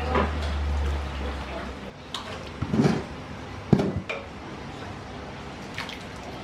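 Cookware clatter: a ladle knocking and scraping in a large aluminium pot of thick porridge, with a few separate clunks about three and four seconds in. A low steady hum runs under the first two seconds.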